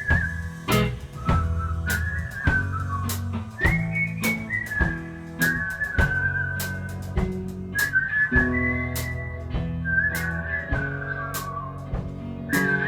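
A whistled melody in short gliding phrases, played over a full rock band: drum kit keeping a steady beat, with bass and guitars underneath.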